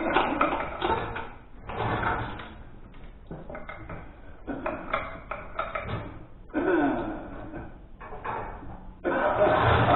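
Chain and metal parts clanking and rattling in irregular bursts of about a second each, as a tractor engine is rigged to an overhead hoist, with sudden loud bursts near the middle and near the end.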